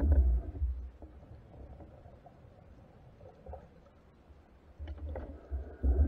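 Faint underwater water noise picked up by a submerged camera, a low rumble with louder low swells near the start and again near the end.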